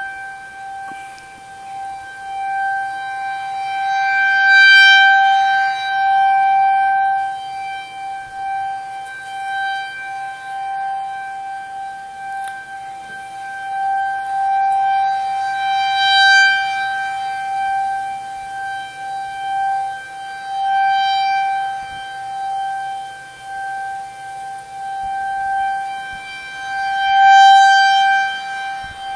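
Outdoor tornado warning siren sounding a steady, unchanging tone, loud, swelling and fading four times as its rotating horn sweeps toward and away.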